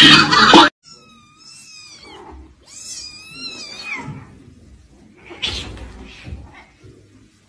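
Cats crying: two high, wavering mew-like cries in the first four seconds, then a short breathy, hiss-like burst at about five and a half seconds. Before them, a loud burst of voices and laughter cuts off abruptly within the first second.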